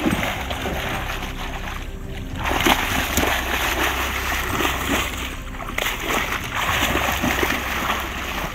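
Water splashing and sloshing in irregular bursts, getting louder about two and a half seconds in.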